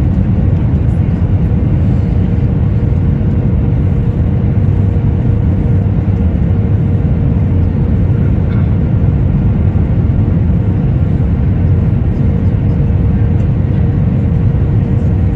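Airliner cabin noise on the descent to land: the engines and airflow give a loud, steady, low rumble through the cabin, with a faint steady whine held on one pitch.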